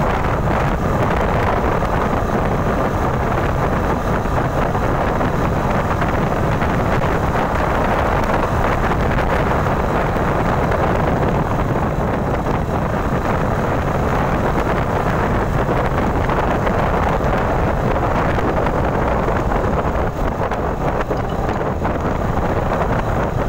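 Wind rushing over the microphone of a Royal Enfield motorcycle at cruising speed on the open road, with the bike's engine running underneath.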